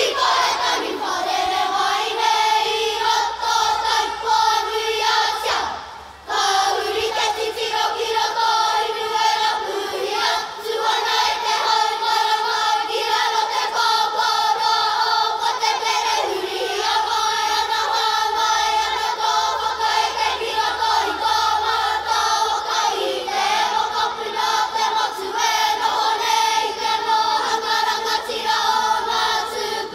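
A kapa haka group of young children singing a Māori song together in unison. There is a brief break about six seconds in.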